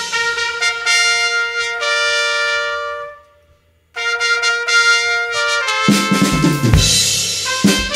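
Brass ensemble music with trumpets playing long held chords. The sound breaks off for under a second near the middle, then the held notes return and a drum kit and the full band come in about six seconds in.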